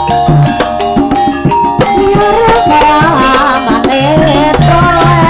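Javanese gamelan accompaniment for a kuda kepang dance: hand-drum strokes over ringing metallophone and gong notes. About two seconds in, a wavering melody line comes in over it.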